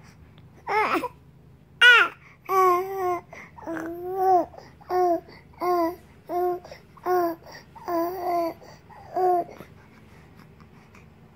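Three-month-old baby girl cooing and babbling. It starts with two higher, gliding squeals about a second in, then a string of short, even coos, roughly one every three-quarters of a second, which stops near the end.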